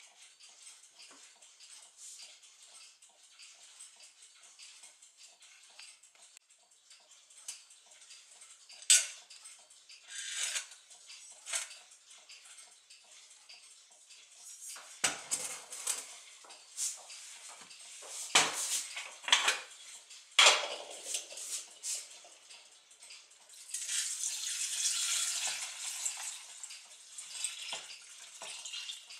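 Brass wheels and steel arbors from a Gustav Becker clock movement clinking and rattling as they are dropped into an enamel pot, in several sharp clatters. Near the end, liquid is poured from a glass jar into the pot with a steady splashing rush, covering the parts to soak for cleaning.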